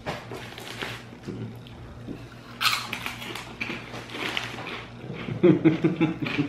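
Plastic snack bag crinkling and puffed penne-shaped snacks being crunched while chewed, with a sharper crinkle about two and a half seconds in. A short pitched voice-like sound comes near the end.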